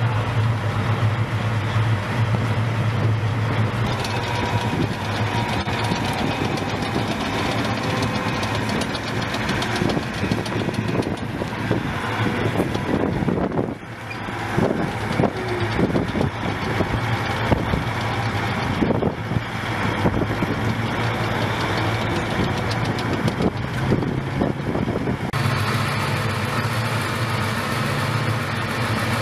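Diesel engines of parked Bradley infantry fighting vehicles idling steadily, a deep even drone, with scattered knocks in the middle stretch.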